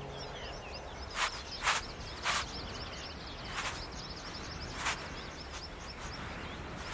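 Small birds chirping in a quick, high-pitched chatter over a faint outdoor background, with five short, sharp, crackling hisses scattered through the first five seconds.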